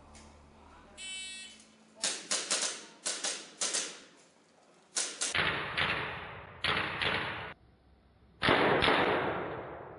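A shot timer beeps once, then an airsoft pistol fires a quick string of about seven shots. After a short pause it fires more shots in pairs and threes, the later ones trailing off in echo.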